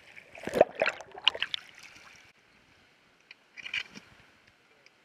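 Water splashing and sloshing around a landing net holding a netted fish: a run of irregular splashes in the first two seconds, then one more brief splash a little before the four-second mark.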